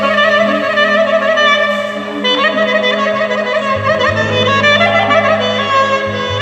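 Clarinet playing a lively, ornamented melody in quick stepwise runs, over a steady held low accompaniment whose bass shifts a little past halfway.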